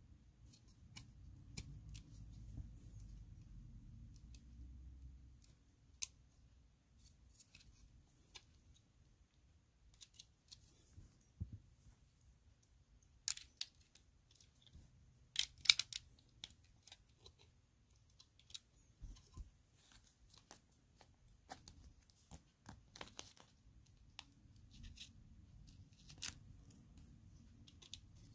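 Scattered small clicks and taps of plastic Lego pieces being handled and pressed together, busiest and loudest in a cluster about halfway through.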